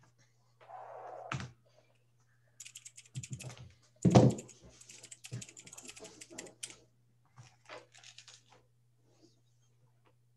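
Computer keyboard typing picked up through a video-call microphone: a quick run of key clicks for a few seconds, with one louder knock about four seconds in, over a faint low hum.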